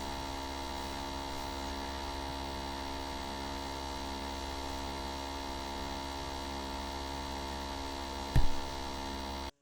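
Steady electrical hum made of several held tones, with one short low thump about eight seconds in.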